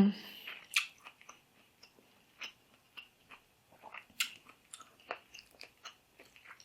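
Close eating sounds: a mouthful of fried fish and green mango salad being chewed, with irregular crunches and wet mouth clicks and smacks.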